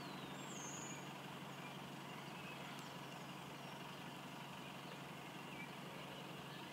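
Faint steady hum of a distant single-decker bus engine idling, under a light hiss of background noise. A bird chirps about half a second in, with a few softer chirps later.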